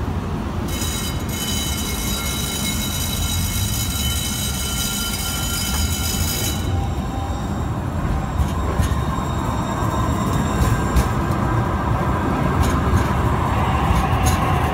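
TriMet MAX light-rail train rounding a street curve. Its wheels give a steady, high-pitched squeal for about the first six seconds, then it runs with a low rolling rumble broken by scattered clicks of the wheels on the rails.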